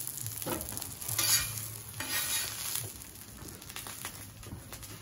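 Blackened salmon fillets sizzling on a flat-top griddle, with a metal spatula scraping the steel as a fillet is lifted off. The sizzle swells a little over a second in and again around two seconds in.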